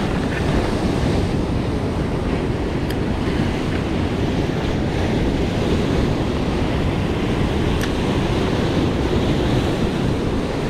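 Heavy surf breaking and washing over rocks in a steady rush, with wind buffeting the microphone.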